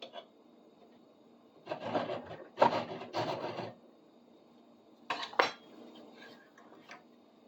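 Coarse hand file pushed across the cut end of a soft metal part. Three strokes come close together about two seconds in, and two shorter strokes follow a little after five seconds.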